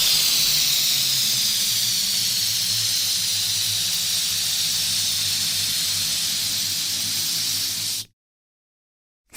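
Electric balloon inflator blowing air: a loud, steady, high airy hiss over a low motor hum, which cuts off abruptly about eight seconds in.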